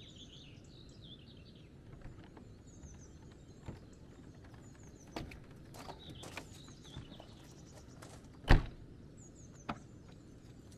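Small birds chirping in short repeated phrases over a low steady outdoor rumble, with scattered clicks and one loud thump about eight and a half seconds in.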